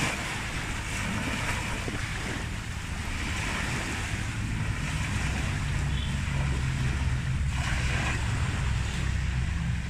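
Small waves washing onto a sandy shore, the wash swelling and fading every few seconds, over a steady low rumble of wind on the microphone.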